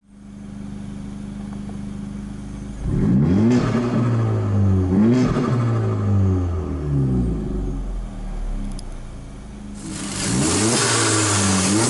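Tuned Honda Civic FK2 Type R's turbocharged 2.0-litre four-cylinder idling steadily, then revved in a run of quick stabs from about three seconds in, the pitch shooting up and falling back each time before it settles toward idle. About ten seconds in a loud steady rushing noise comes in as the revving starts again.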